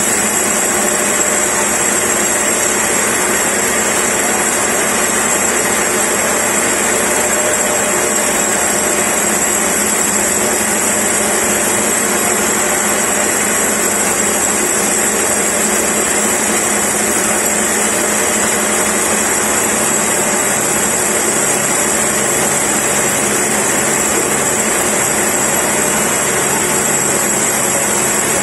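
Large band sawmill running, its blade sawing lengthwise through a big log, a steady loud mechanical noise with a high whine.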